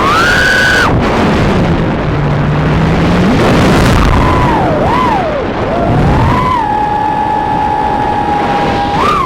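Brushless motors of a 3-inch FPV quadcopter whining, the pitch swinging with the throttle: high at first, dropping to a low hum about two seconds in, then climbing, dipping and holding steady before swooping again near the end, over a constant rush of air noise.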